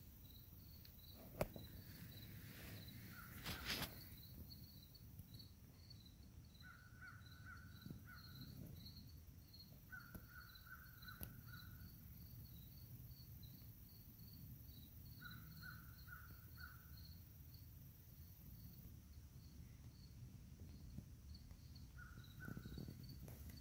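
Faint woodland ambience: a bird calls in runs of four or five harsh notes, four times, over a steady high chirp repeated about twice a second. There is a brief rustle about four seconds in.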